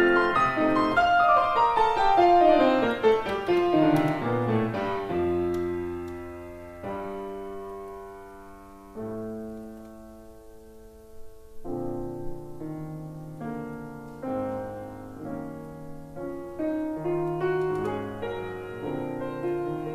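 Grand piano playing alone. It opens with a loud falling run of notes, settles into quieter held chords in the middle, then picks up with moving chords again in the second half.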